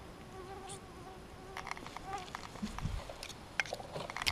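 A flying insect buzzing steadily for about two seconds, its pitch wavering slightly, then stopping. It is overlapped and followed by rustling and sharp clicks from handling in the grass, loudest near the end.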